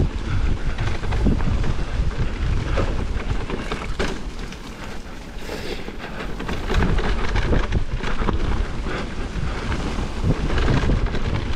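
Wind buffeting the microphone during a mountain-bike descent on a wet trail, a heavy low rumble. Over it, a Cannondale Moterra LT2 mountain bike's tyres and frame clatter over the rough ground in a steady run of knocks and rattles.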